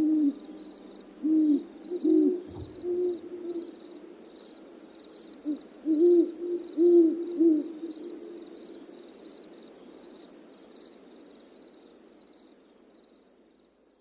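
An owl hooting: about eight short low hoots, some in quick pairs, over a faint high chirping that repeats a few times a second. The hoots stop after about seven and a half seconds and the remaining background fades out.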